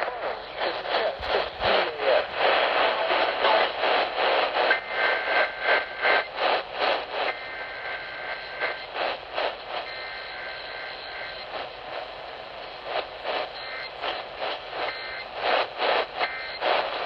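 Emergency Alert System header data bursts, the warbling two-tone digital screech, sent three times about a second apart, picked up off AM radio and half buried in loud, fast-pulsing noise.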